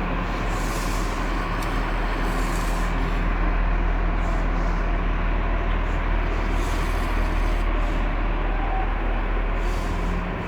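A man snoring loudly and continuously in a car's back seat, a rough rasping snore with a hiss on the breath every few seconds.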